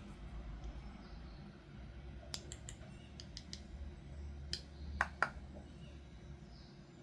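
Light clicks and taps of small plastic toy pieces and packaging being handled, a scattered run of them from about two seconds in, the two loudest about five seconds in, over a low steady hum.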